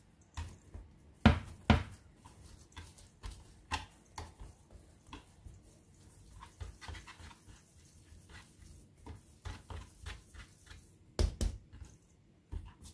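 Hands shaping yeast dough into balls on a wooden cutting board: scattered soft taps and thumps as the dough is pressed, turned and set down, with louder knocks about a second in and near the end.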